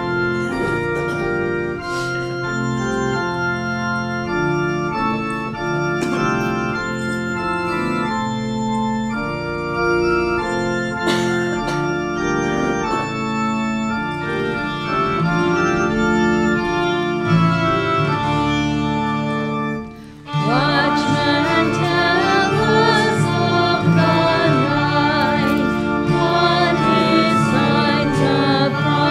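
Church organ playing the introduction to a hymn in sustained chords. After a brief break about two-thirds of the way through, the congregation comes in singing the hymn with the organ.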